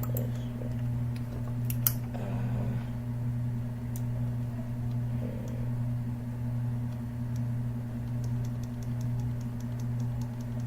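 Faint clicking at a computer over a steady low hum. A few single clicks come early, and from about eight seconds in an even run of clicks several a second.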